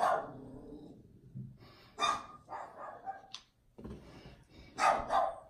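Dog barking in short barks: one about two seconds in and two close together near the end.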